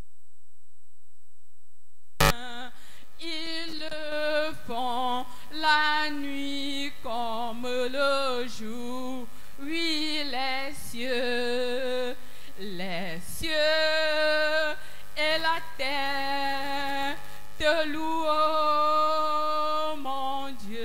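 A woman sings a French hymn solo into a handheld microphone, unaccompanied, in long held phrases with a wide vibrato. The singing starts about two seconds in, just after a short click.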